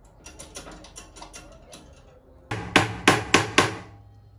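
Light metal clinks and taps of hand tools, then four loud hammer blows in quick succession, about a quarter second apart, with a low steady hum setting in under them.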